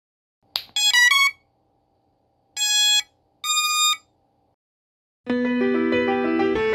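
Racing quadcopter ESC startup tones: a quick rising three-note beep run, then two longer electronic beeps. Keyboard music starts about five seconds in.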